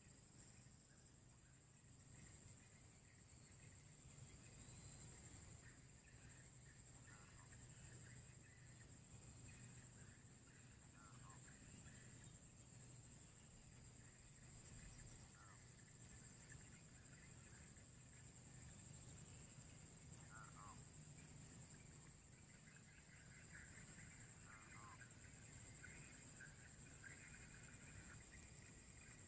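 Forest ambience: a steady high-pitched insect drone, with a faint short falling call repeating about every four seconds from deep in the forest, which is the unidentified strange sound.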